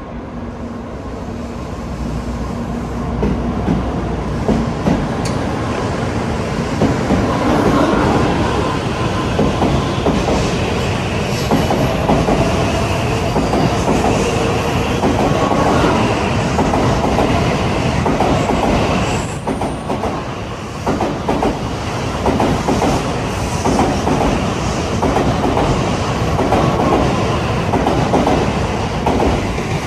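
N700-series Shinkansen train pulling out past the platform, its cars sliding by at gathering speed with a steady running noise of wheels on rail. The sound grows louder over the first several seconds, then holds, dipping briefly about twenty seconds in.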